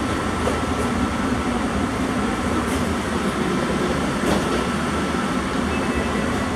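Steady hum and rumble inside a JFK AirTrain people-mover car standing at a station with its doors open, with a few faint clicks.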